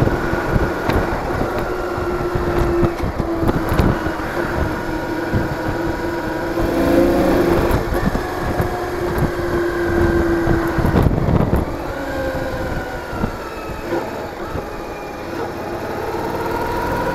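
Cruiser motorcycle's engine running at road speed, its pitch rising and falling a few times with the throttle, over low wind rumble on the microphone.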